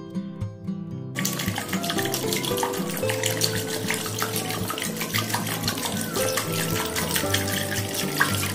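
Full-cream milk pouring in a steady stream from a carton into a stainless steel wok, splashing into the liquid already in it; the pour starts about a second in and runs on steadily, with background music.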